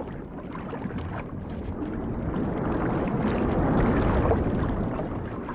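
Rough sea water surging and churning underwater over a rocky reef, swelling to a loud rush about four seconds in and then easing.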